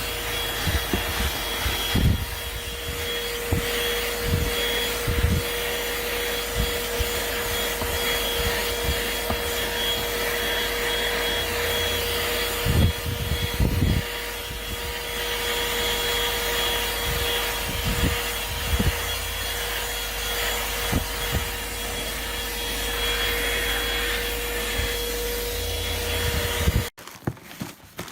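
THISWORX 12-volt handheld car vacuum running steadily with a constant motor whine, with occasional knocks as it is worked. It cuts off abruptly near the end.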